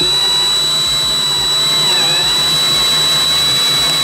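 Cordless drill with a spade bit boring a hole through a plastic headlight housing. The motor whines steadily and dips briefly in pitch about halfway through as the bit bites into the plastic.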